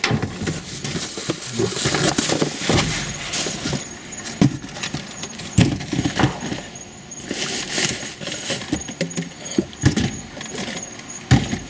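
Rummaging through a dumpster for canned sparkling water: irregular knocks and clatter of cans and rubbish being shifted, with rustling and a few squeaks.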